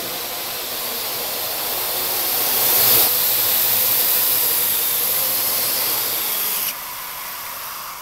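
Parrot AR.Drone quadcopter hovering, its four rotors making a steady hissing whir that swells over the first three seconds and drops suddenly near the end.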